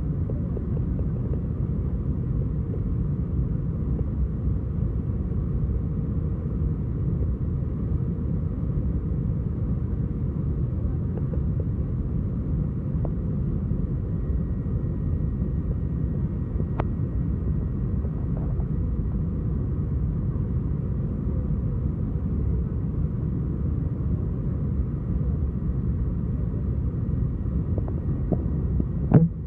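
Cabin noise of an Airbus A321 on its descent towards landing, heard from a window seat over the wing: a steady low rumble of engines and airflow. A brief thump near the end.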